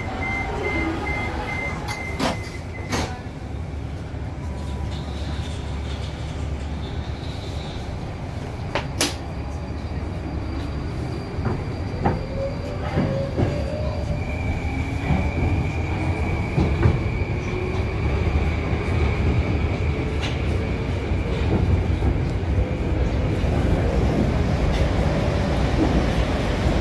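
Moscow metro 81-775/776/777 train: the door-closing warning beeps end, the doors shut with a couple of sharp clicks, and the train pulls away. Its traction inverter whine rises steadily in pitch over the wheel and carriage rumble, which grows louder as it speeds up.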